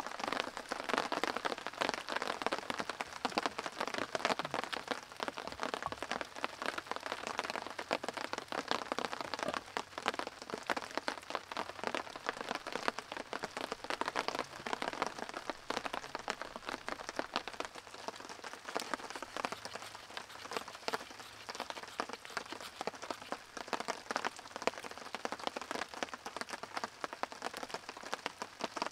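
Steady rain, a dense patter of drops.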